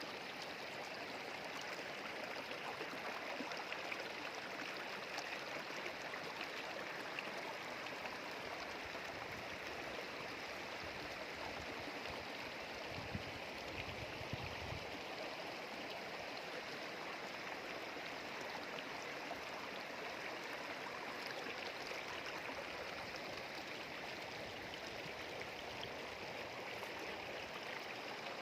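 Forest stream flowing steadily with a continuous rushing, gurgling wash of water. A brief low rumble comes about halfway through.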